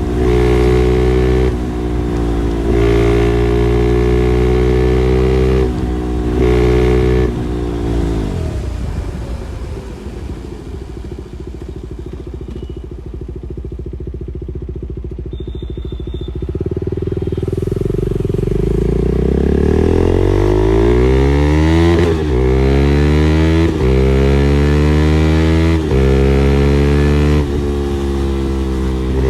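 KTM 390 Duke BS6's single-cylinder engine through an Austin Racing replica full-system exhaust, under way. It holds steady revs with brief dips at gear changes, then about 8 s in the revs fall away to low, quieter running for several seconds, and from about 17 s it accelerates again, the revs rising and dropping back at each of several upshifts.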